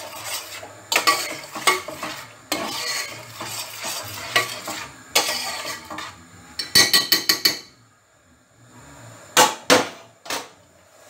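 A spoon stirring a thick meat-and-tomato sauce in a large stainless steel pot, with repeated scraping strokes against the pot. About two-thirds of the way through there is a quick run of metallic clicks, and near the end three sharp knocks.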